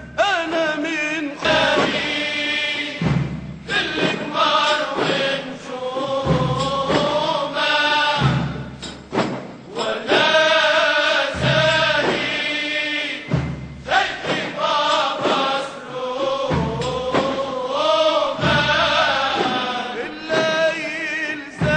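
Background music: a voice singing a wavering, ornamented melody over a regular low drum beat.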